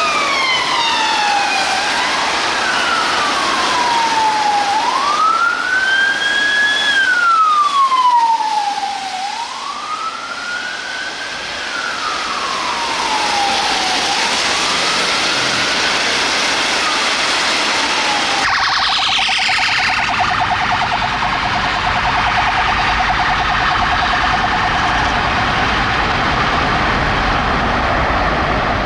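UK police vehicle sirens in wail mode, two of them overlapping, each slowly rising and falling in pitch and fading away about halfway through. Then steady road traffic noise.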